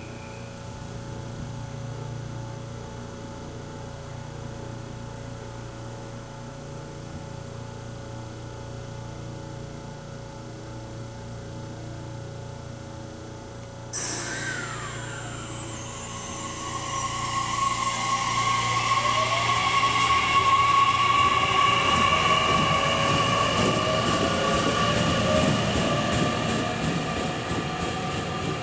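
JR Kyushu 813 series electric train standing with a steady hum from its onboard equipment. About halfway through there is a sudden hiss, and then the inverter and traction motors whine in rising tones and grow louder as the train pulls away and gathers speed.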